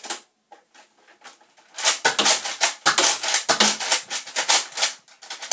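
Rapid plastic clicking and rattling from a Nerf Elite Rampage dart blaster and its magazine being handled. A few faint clicks come first, and a dense run of clicks starts about two seconds in and lasts some three seconds.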